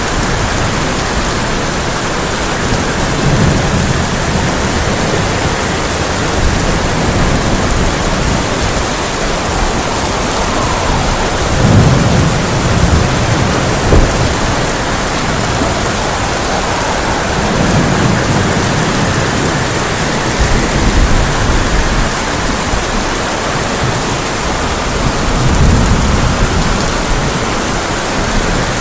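Heavy rain falling steadily on a tin roof, with several low rolls of thunder, the loudest about twelve seconds in, and a sharp crack about fourteen seconds in.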